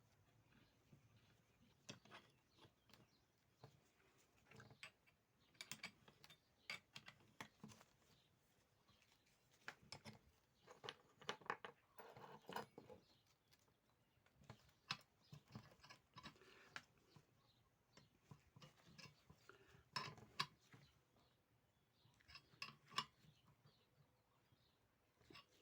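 Faint, scattered clicks and light taps of small metal parts and hand tools being handled while a small two-stroke trimmer engine is worked on, with a few sharper knocks now and then.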